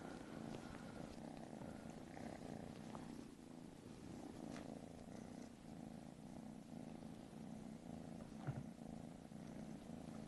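Kitten purring steadily and faintly, with a couple of small clicks partway through.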